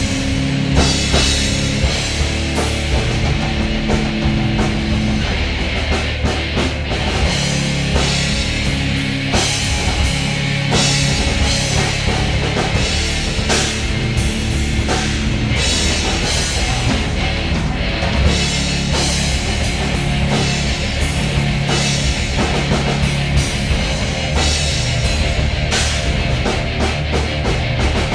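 Rock band jamming live: a drum kit keeping a steady beat under sustained low notes that change pitch every second or two.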